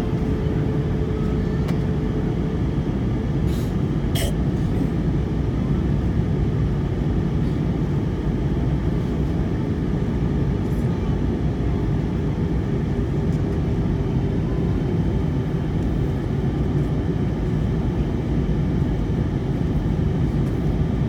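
Steady cabin noise of a jet airliner in cruise flight, heard from inside the cabin: engine and airflow as a constant low rumble with a faint steady hum. There are a couple of faint clicks about four seconds in.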